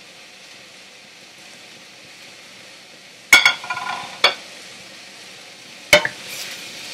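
Chinese okra and egg sizzling steadily in a frying pan, then sharp clanks of cookware about three seconds in, again a second later, and near six seconds, the first with a brief ring, followed by scraping as the food is stirred.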